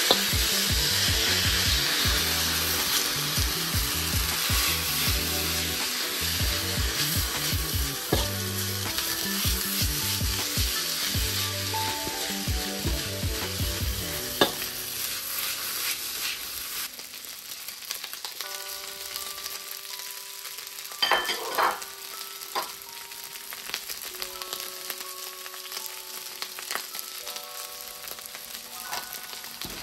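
Food sizzling in a hot wok as it is stir-fried, with scattered clicks and scrapes of the utensil against the pan. The sizzle is loudest early on and eases off about two-thirds of the way through.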